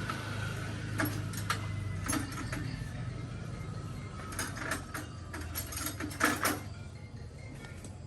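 A string of sharp knocks and clatters, several bunched together between about four and six and a half seconds in, over a steady low hum.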